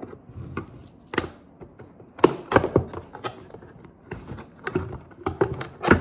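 A cardboard box being opened by hand, with scissors and cardboard flaps handled. It gives irregular sharp clicks and taps, loudest a couple of seconds in and again near the end.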